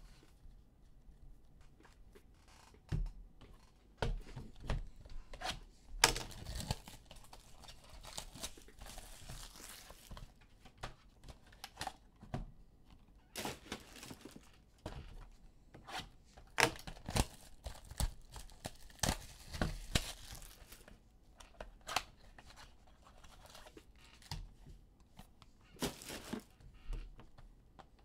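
Trading card packs being torn open by hand: wrappers tearing and crinkling in irregular bursts, with sharp clicks and taps as the packaging and cards are handled.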